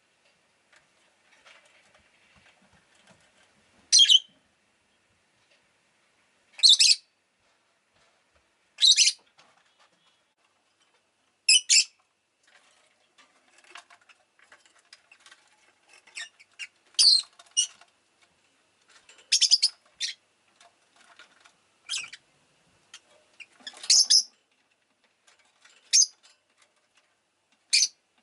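Rosy-faced lovebird giving short, sharp, high-pitched chirps, about ten of them spaced two to three seconds apart, with faint softer chatter between the calls.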